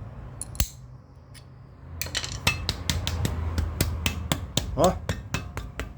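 Disc-brake caliper worked by hand after its anti-rattle clip is engaged: a sharp metal click, then from about two seconds in a quick run of light metallic knocks, about five a second, as it is shaken to test for the rattle.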